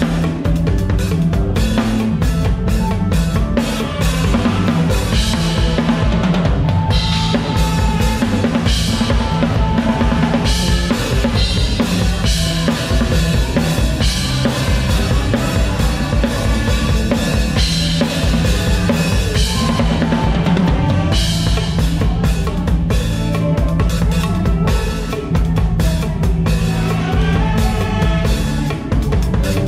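Drum kit played up front in a live band, with kick drum, snare and cymbals driving a steady beat over electric bass and keyboard as the band runs through a song medley.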